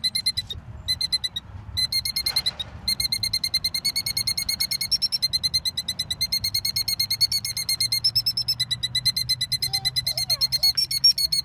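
A killdeer giving its rapid, trilling alarm call, a steady run of short high notes that breaks off twice briefly near the start. The call is the bird's distress at people standing close to its eggs.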